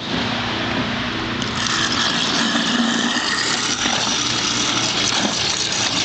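Garbage disposal running steadily with a low motor hum. Water rushes through it from about one and a half seconds in, flushing ground pumpkin pulp out the drain.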